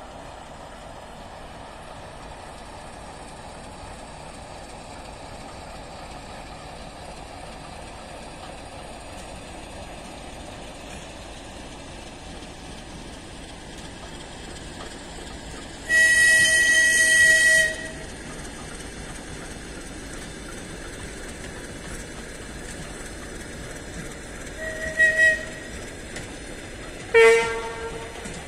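Freight train of flatcars rolling past behind a ChME3 diesel shunting locomotive, a steady rumble. About halfway through a loud locomotive horn blast lasts nearly two seconds, followed near the end by two short blasts, the last one lower in pitch.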